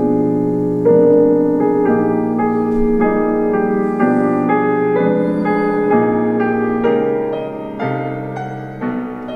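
Tivoli Audio Model One table radio playing piano music loudly through its small speaker, with no deep bass. The volume drops somewhat near the end as the knob is turned back.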